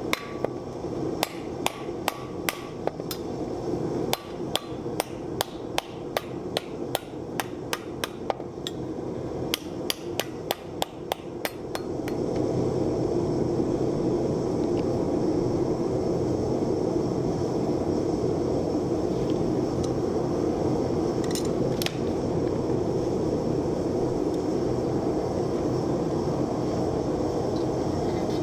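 Hand hammer striking a steel wok blank over and over, about two to three blows a second with short pauses, dishing it into a hollow in a wooden stump. About twelve seconds in the hammering stops and a steady rushing noise from the lit gas forge takes over.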